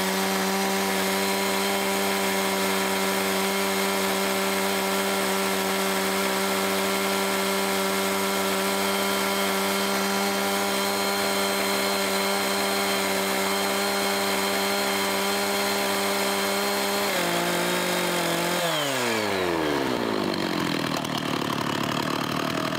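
Stihl 066 two-stroke chainsaw running at full throttle, ripping a cedar log lengthwise in a chainsaw mill, its pitch held steady under load. Near the end the throttle is released and the engine winds down to idle.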